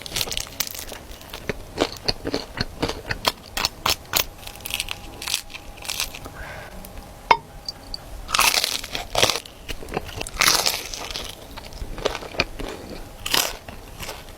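Close-miked crunching and crackling of crispy fried pempek being handled and bitten, with sharp clicks and taps throughout and louder bursts of crunching in the second half.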